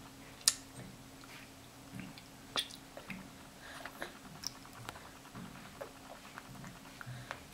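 A baby chewing and gumming a piece of carrot: faint, irregular wet smacks and small clicks from the mouth, two of them sharper than the rest.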